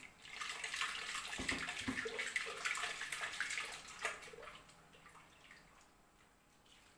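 Thick blended tomato and peanut-butter sauce pouring from a blender jug into a pan of meatballs, splashing steadily, then trailing off about four seconds in.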